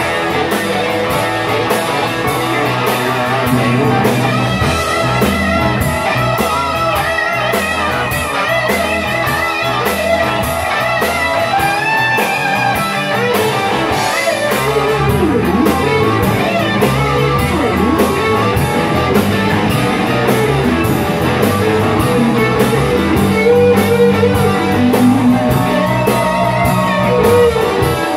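Live rock band playing blues rock: electric guitars, bass guitar and drum kit together, loud and continuous, heard through the room as amplified stage sound.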